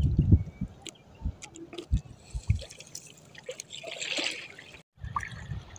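Shallow seawater splashing and dripping, with scattered knocks and low bumps. A longer splashy rush comes about four seconds in.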